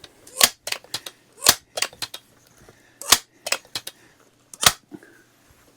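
Crosman 1400 pump air rifle being worked by hand: four loud clacks about a second and a half apart, with lighter clicks in between, fitting the four strokes of its pump lever.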